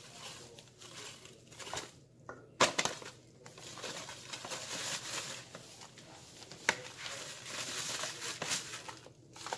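Flour bag rustling and crinkling as whole-wheat flour is shaken out of it into a steel bowl, with a soft hiss of pouring flour. A sharp crackle of the bag comes about two and a half seconds in and again near seven seconds.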